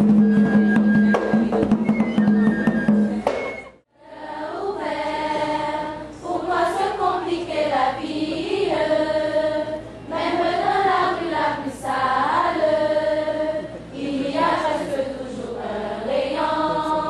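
Traditional dance music with a steady low note and percussion plays for the first few seconds, then cuts off abruptly. After a brief gap, a choir of schoolgirls sings a song.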